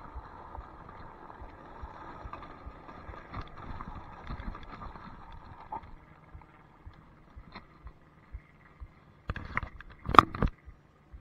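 Electric scooter rolling over a gravel trail, its tyres crunching and the scooter rattling with many small knocks over the bumps. About six seconds in it rolls onto smooth pavement and goes much quieter, with a faint steady hum, then a short cluster of loud knocks near the end.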